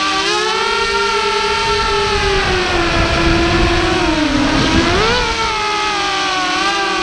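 Small FPV quadcopter's electric motors and propellers whining, heard through its onboard camera. The pitch holds high, sags about four seconds in, then swings back up.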